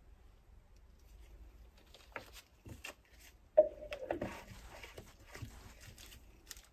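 Cups and a bottle being handled and set down on a covered tabletop: a few light knocks, a louder knock with a brief ring about three and a half seconds in, then a couple of seconds of rustling and scraping, with a last click near the end.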